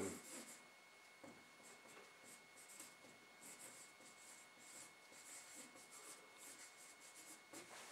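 Marker pen writing on a whiteboard: faint, short scratchy strokes one after another as a line of handwriting is written.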